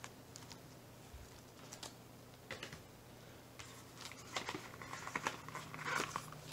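Faint handling noise: small clicks and taps of a plastic bit case, then cardboard rubbing, scraping and rustling as a small box is worked out of a cardboard packaging box, busier from about halfway in.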